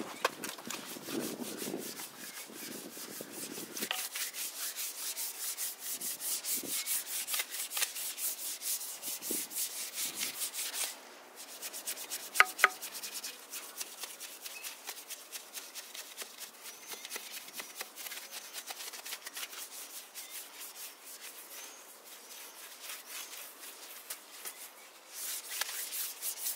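Wheel brush scrubbing a wet, soapy alloy wheel: fast, scratchy back-and-forth bristle strokes. They are heaviest in the first half, pause briefly, then go on more lightly, with two sharp knocks about halfway through.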